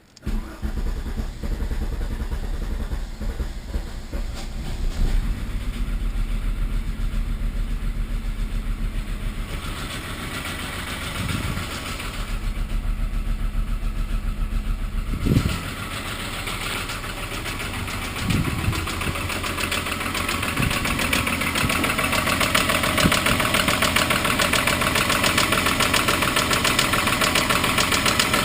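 Volkswagen Mk3 Golf VR6 narrow-angle V6 engine catching and running with a heavy knocking noise while the oil-pressure light flashes, briefly revved a few times.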